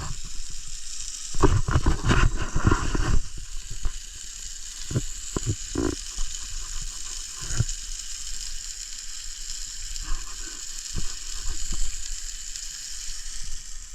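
Burger patty frying with a steady high sizzle. A loud run of knocks and clatter comes about a second and a half in, with a few single clicks after.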